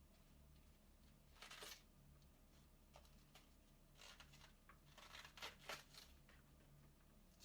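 Knife cutting through a head of cabbage into thin shreds: soft, crisp slicing strokes that come irregularly, one longer stroke about a second and a half in and a quick cluster of strokes in the second half.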